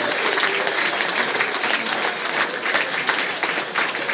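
Football crowd in the stands applauding: many hands clapping steadily.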